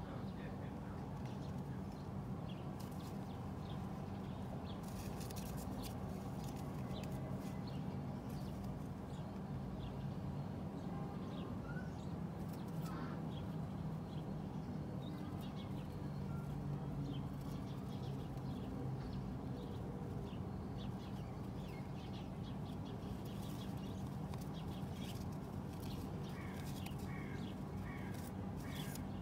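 Pigeons close to the microphone: scattered light clicks and scratches and a few short chirps, over a steady low hum.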